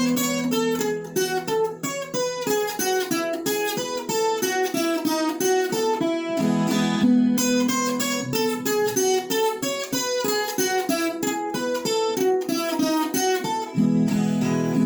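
Viola caipira playing a fast instrumental break of quickly picked single-note runs, with low chords strummed underneath at times.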